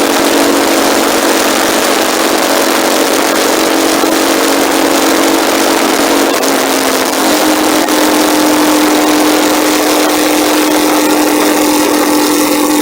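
Motorcycle engine running steadily while riding, under heavy wind rush on the microphone; the engine note steps up a little about seven seconds in.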